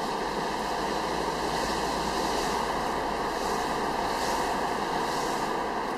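Steady road noise of a car driving on a wet road, heard from inside the cabin: tyre hiss on the wet surface over a low engine hum, with faint swishes recurring about once a second.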